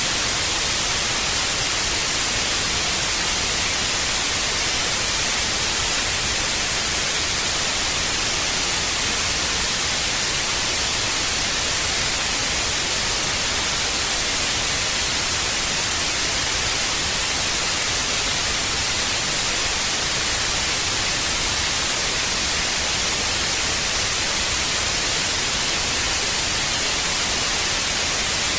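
Old analogue television static: a steady, unbroken hiss of white noise, brightest in the high range.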